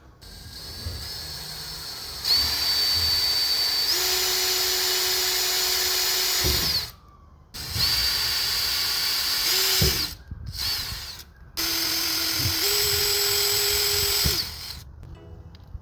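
Electric drill with a 3/16-inch bit drilling holes in a rocker panel, run in three bursts of a few seconds each after a quieter start. Its whine steps up in pitch partway through the first and last runs.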